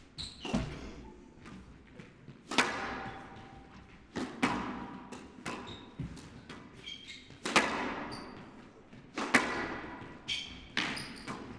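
Squash rally: the ball smacking off rackets and walls every one to two seconds, each hit trailing a short echo, with brief shoe squeaks on the court floor between shots.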